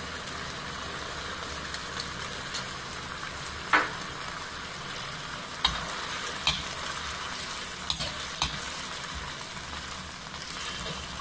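Sauce sizzling in a hot metal kadhai while a metal ladle stirs in a cornflour slurry to thicken it, with a handful of sharp clicks of the ladle against the pan.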